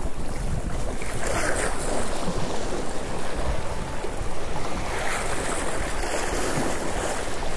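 Strong gusty wind buffeting the microphone: a continuous, uneven rush with a low rumble that rises and falls with the gusts.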